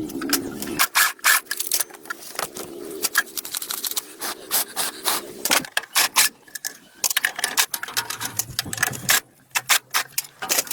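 Irregular clatter of sharp clicks and knocks from hand work with tools, with a brief low hum a little before the end.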